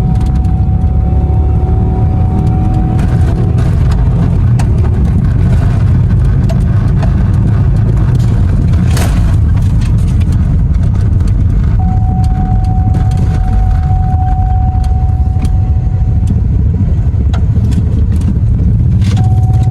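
A 2005 Pontiac Grand Prix's engine running steadily, loud and close, after being brought back up and running. A thin steady tone sounds over it for a few seconds at the start and again in the second half, with a sharp click about nine seconds in.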